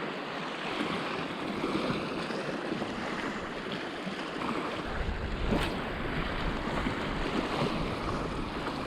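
Sea waves washing against the rocks in a steady surf wash. From about halfway through, wind buffeting the microphone adds a low rumble, and there is a single short knock near the middle.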